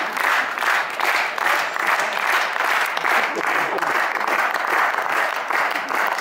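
Audience applauding, the clapping falling into a steady rhythm of about two to three claps a second.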